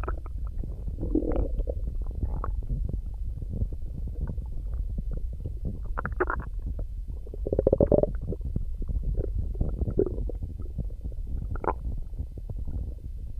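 Stomach growling: a continuous low rumble broken by irregular gurgling swells, the loudest about eight seconds in.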